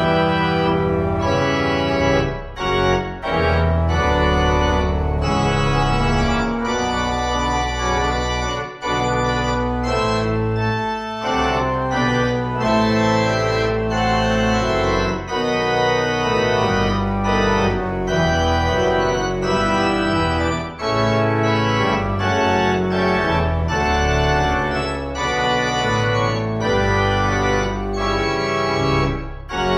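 Organ music playing sustained chords over a deep held bass line, the chords changing every second or so.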